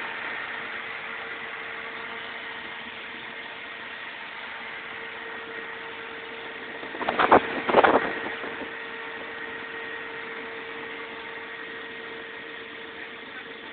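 Sullair 16-100 compressor running steadily, a constant hum with a higher steady tone over it. About seven seconds in come two short loud bursts, half a second apart.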